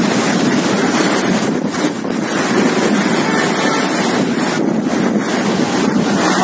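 Strong storm wind buffeting the microphone over rough sea surging and breaking against the seawall: a loud, steady rush of noise.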